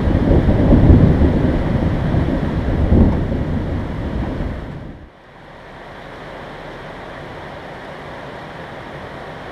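Thunder rolling: a loud low rumble that swells twice and dies away. About five seconds in it cuts off suddenly, leaving a steady, quieter hiss.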